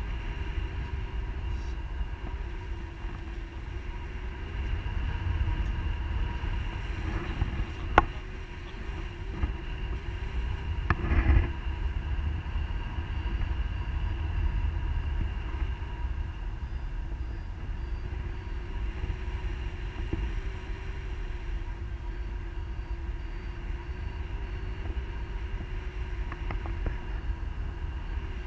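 Wind buffeting the microphone of a pole-mounted action camera during paraglider flight: a steady low rumble, with a sharp knock about 8 seconds in and a brief louder knock a few seconds later.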